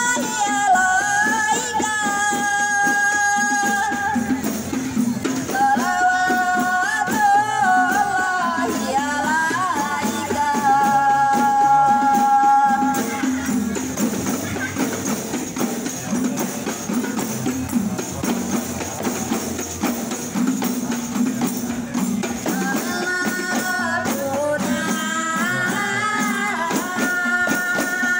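Rebana group music: a sung melody over a steady beat of rebana frame drums. The singing stops for several seconds midway while the percussion carries on, then comes back near the end.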